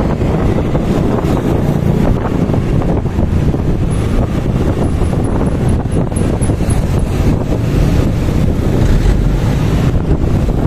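Steady wind buffeting on the microphone of a moving motor scooter, over the scooter's engine and road noise.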